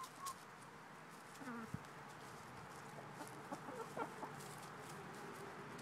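Hens clucking quietly while feeding: a few short low calls about a second and a half in, then a little cluster of clucks near the four-second mark.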